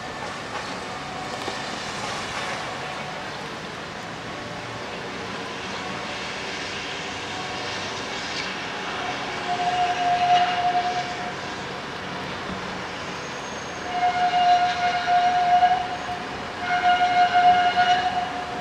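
A railway warning tone sounds three times, each spell a steady high pitch lasting one to two seconds and pulsing slightly, with a Toden Arakawa Line tram running near the station. Steady rain noise lies underneath throughout.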